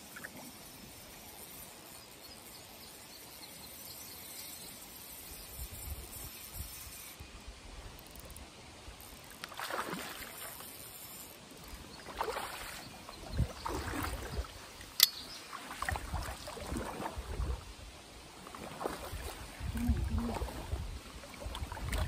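Water splashing in irregular bursts from about ten seconds in, growing more frequent toward the end, as a hooked smallmouth bass is fought near the surface close to the bank. One sharp click about midway is the loudest sound.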